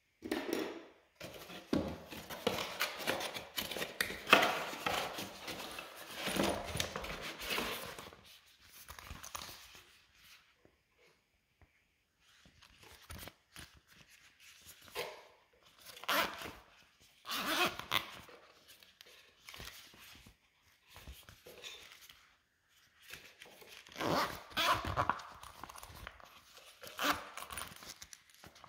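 Beard trimmer packaging being handled and opened, with rustling and tearing in irregular bursts and quieter pauses in between.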